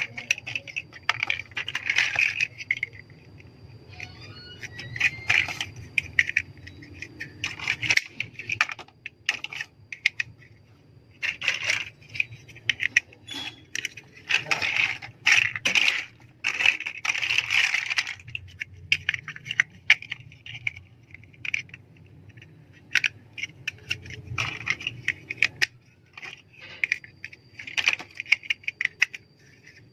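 Plastic LEGO pieces clicking and rattling as they are handled, sorted and pressed together, in irregular bursts of small clicks with short pauses between.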